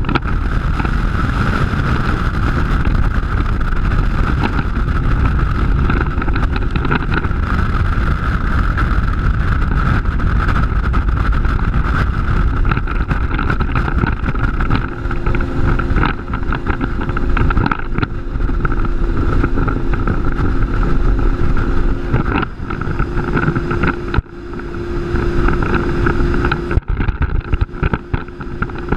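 Mercury Racing 400R supercharged outboard running at high speed on a flats boat, with wind buffeting the microphone and water rushing off the hull. The loudness dips briefly a few times near the end.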